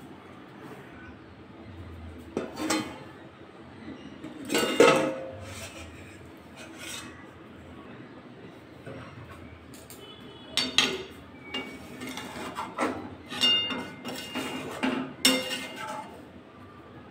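Metal cookware clanking and scraping: a steel bowl used as a lid on a metal kadai, and a flat steel spatula stirring the curry. A few sharp clanks come in the first five seconds, the loudest near five seconds, then a run of quick scraping clinks of the spatula against the pan from about ten seconds on.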